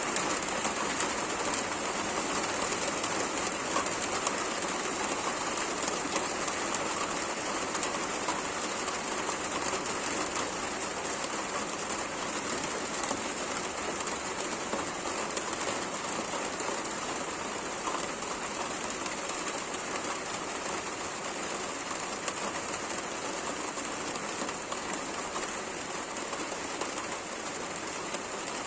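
Steady rain falling, a dense even patter of drops on surfaces.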